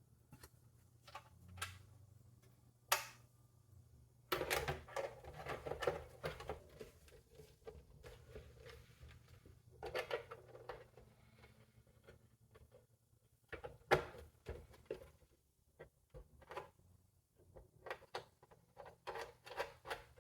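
Clicks, knocks and clattering scrapes of plastic and metal computer parts being handled, with two longer bursts of rattling and sliding among scattered single clicks.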